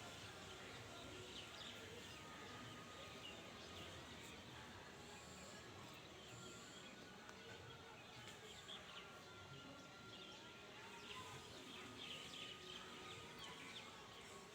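Faint chirping of many birds, short scattered calls throughout, over a steady background hiss.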